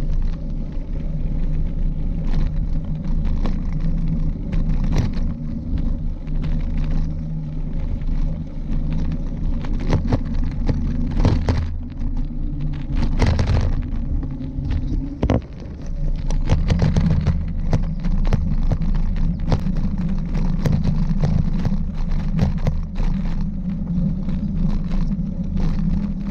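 Riding noise picked up by a bicycle-mounted camera: a steady low rumble of tyres rolling and wind on the microphone, with frequent small knocks and rattles as the bike goes over bumps.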